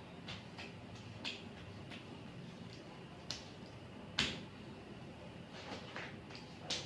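Irregular short clicks and taps, about nine of them, the loudest a little past four seconds in, over faint room noise.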